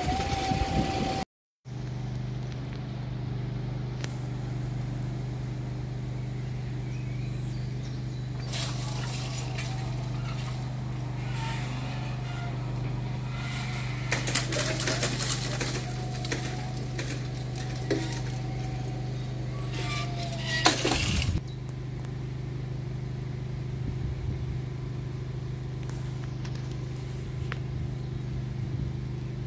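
Vehicle engine idling with a steady low hum, with scattered light clinks and ticks through the middle stretch. The sound cuts out briefly about a second in.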